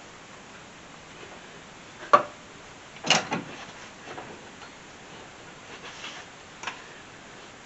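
Hand tools and suspension parts knocking during strut work on a car's front end: a sharp knock about two seconds in, a short cluster of knocks a second later, and a couple of fainter clicks near the end.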